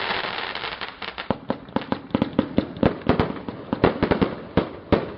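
Multi-calibre firework cake firing: from about a second in, a rapid series of sharp bangs, several a second, some louder than others.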